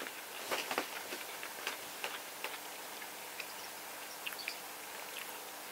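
Quiet eating: a mouthful of tatsuta-age fried chicken being chewed, with scattered faint clicks at uneven intervals.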